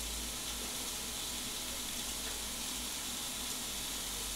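Pork steaks sizzling steadily inside a closed Tefal OptiGrill Plus contact grill.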